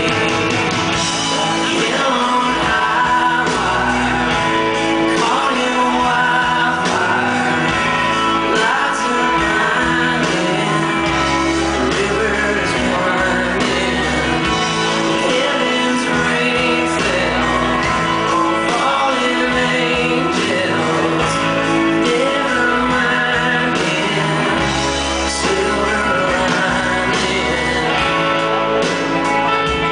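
A rock band playing live, a male lead singer singing over acoustic and electric guitars, keyboard and drums, recorded from within the audience in a large hall.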